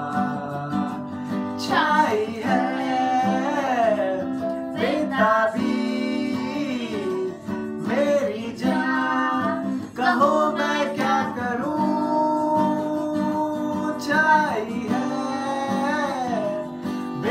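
A man singing a song in long held notes that bend in pitch, over a strummed acoustic guitar.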